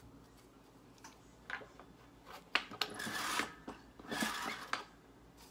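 Fiber cushion wad being torn apart by hand: a few light clicks, then two rasping tears, one about three seconds in and one about four seconds in.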